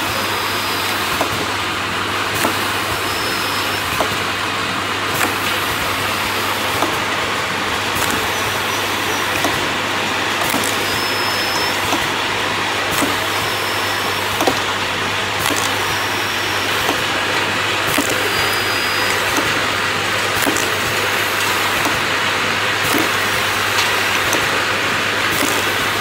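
CX-YGF e-liquid filling, plugging and capping machine running: a steady mechanical whirr over a low hum, with light clicks every second or two and a few brief high squeaks as its parts cycle.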